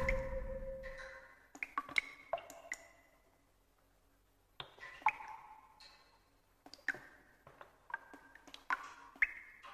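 Water dripping at irregular intervals, each drop a sharp click with a short ringing ping of varying pitch. The tail of a loud boom fades out during the first second.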